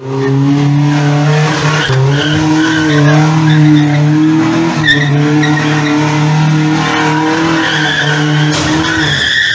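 Pickup truck engine held at high revs, a steady, even pitch, while its tyres spin and squeal. The squeal grows louder and higher near the end as the engine note drops away.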